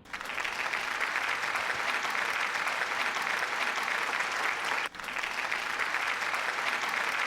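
A crowd applauding, starting abruptly, with a brief break about five seconds in before the clapping resumes.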